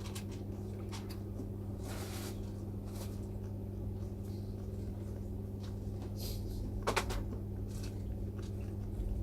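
A steady low electrical hum from bench equipment, with a few faint clicks and taps of small tools being handled at a microsoldering bench, the loudest near the end.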